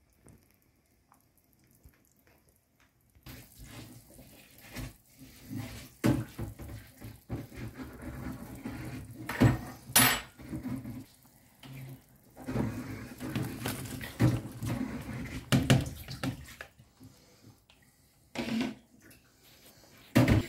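Water running and splashing, with clinks and knocks of pots and utensils, starting after about three seconds of near silence; a sharp clack about ten seconds in.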